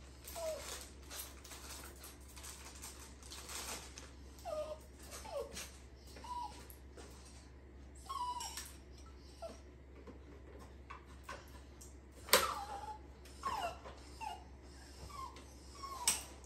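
A puppy whimpering and whining over and over, short high whines that bend in pitch, crying for attention. A few sharp clicks and knocks come in between, the loudest about twelve seconds in.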